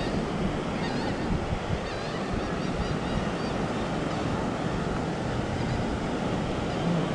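Steady wash of surf and wind noise, with a few faint, short high chirps now and then.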